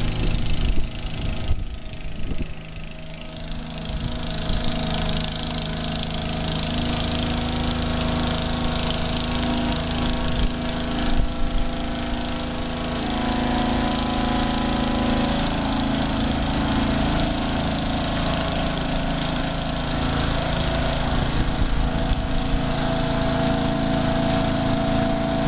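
Small engine running steadily under load while the water tank's stand is raised. Its note changes about halfway through.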